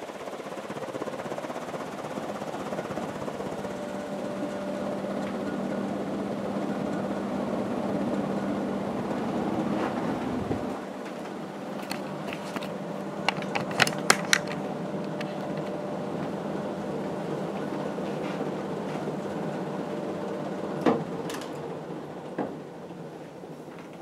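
Fasco Heat Cycler industrial ceiling fan running on high: a steady rush of air from the blades over a steady motor hum. A quick cluster of sharp clicks comes about halfway through, and another click or two near the end.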